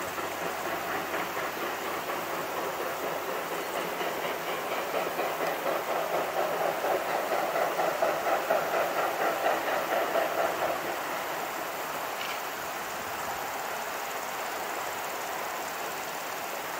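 Narrow-gauge steam locomotive working a train, heard from a distance: a rhythmic chuffing of exhaust beats that swells for several seconds and then fades away.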